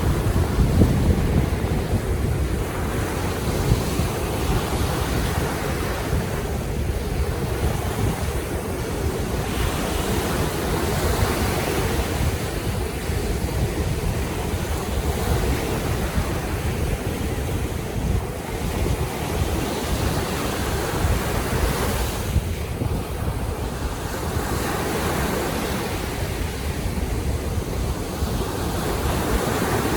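Baltic Sea waves washing in continuously, the surf swelling and easing every few seconds, with wind rumbling on the microphone.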